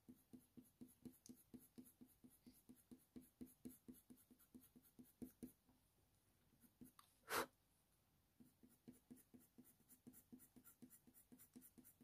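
Colour pencil shading on hot-press watercolour paper with light pressure: faint, quick strokes at about four a second, thinning out midway and picking up again. One brief, louder tap comes about seven seconds in.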